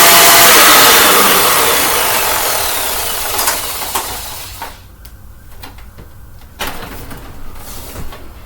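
Upright vacuum cleaner motor switched off about a second in, its whine falling in pitch as it winds down over a few seconds. A few clicks and knocks of handling follow near the end.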